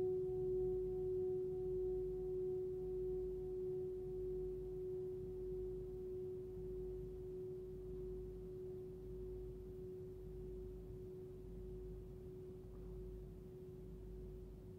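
A 13.5 cm hand-hammered singing bowl ringing out on its F# fundamental of about 367 Hz, with a slow, even wavering as it fades steadily. A fainter higher overtone dies away about halfway through.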